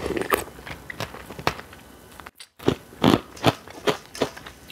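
Close-miked eating sounds: crisp, crunchy bites and chewing. After a brief dead-silent break a little before the halfway point, the chews come steadily, about every third of a second.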